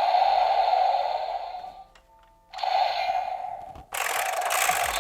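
Electronic sound effects from a Bandai Super Sentai Zenkaiger role-play toy's small built-in speaker. A buzzing effect plays, breaks off for about half a second, then starts again, and near the end gives way to a brighter hissing blast.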